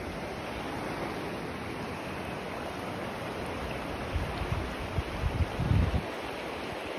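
Small mountain trout stream running over rocks: a steady rush of water. Between about four and six seconds in, low rumbling buffets of wind hit the microphone.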